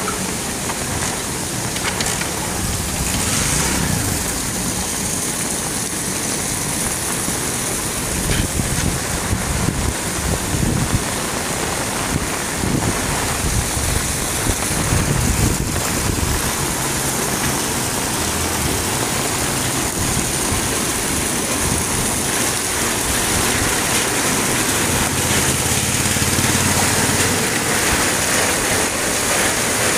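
Heavy monsoon rain pouring on a flooded street: a steady rush of rain and running water, with an uneven low rumble underneath.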